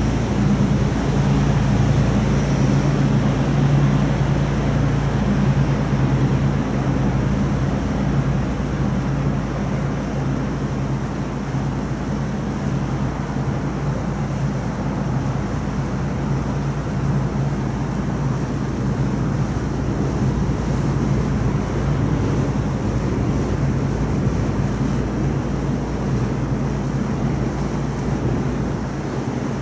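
River cruise boat's engine running with a steady low drone, with wind noise rumbling on the microphone.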